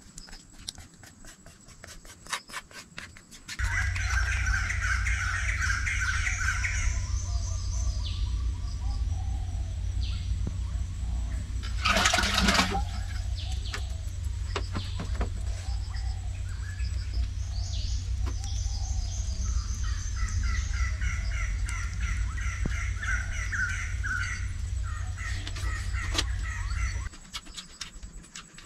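Birds chirping and calling in repeated phrases over a steady low rumble, which start abruptly a few seconds in and stop just before the end, with one louder burst about twelve seconds in. Before and after, light clicks and taps of chopsticks and eating.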